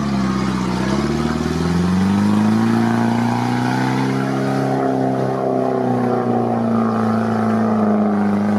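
Off-road 4x4's engine revving hard under load, its pitch climbing over the first couple of seconds and then held at high revs as the vehicle pushes through deep mud.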